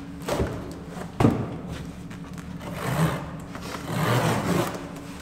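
Cardboard boxes being handled and opened in a pickup bed: a sharp knock about a second in, then scraping and rustling of cardboard twice.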